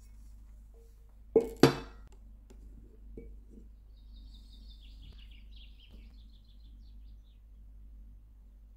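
Two sharp clinks of a stainless steel bowl against a countertop about a quarter second apart, the second ringing briefly, then a few softer knocks. Birds chirp faintly a few seconds later.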